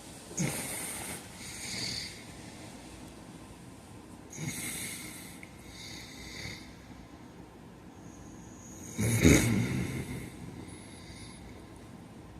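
A man snoring in his sleep: a run of rough snoring breaths a couple of seconds apart, the loudest one about nine seconds in.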